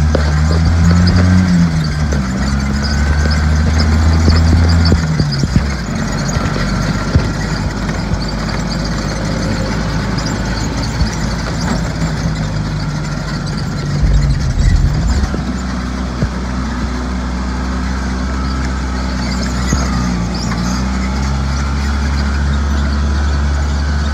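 Joyner side-by-side UTV engine running while driving, its note rising and falling with the throttle for the first few seconds, then settling to a steadier, lower drone that lifts again later. There is a low thump about halfway through.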